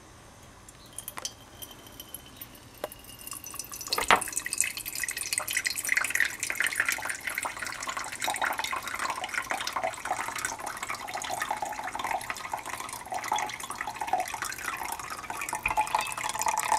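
Liquid draining from a glass separatory funnel through its opened stopcock into a glass beaker: a few light clicks, a sharp click about four seconds in, then a steady splashing trickle of liquid into the glass.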